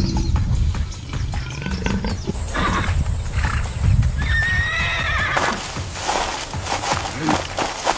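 An animal's high, quavering call near the middle, then a quick run of sharp knocks through the second half, over a steady low rumble.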